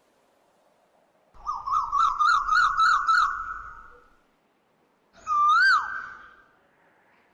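Bird-like whistled calls: a quick warbling run of about six notes, then a single call that swoops up and falls away.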